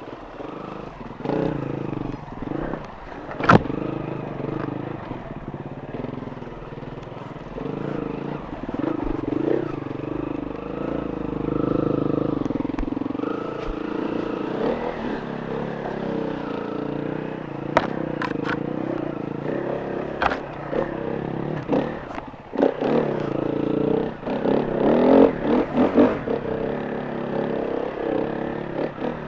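Enduro motorcycle engine running and revving, its pitch rising and falling, with scattered sharp knocks and clatter; the loudest is a single crack about three and a half seconds in.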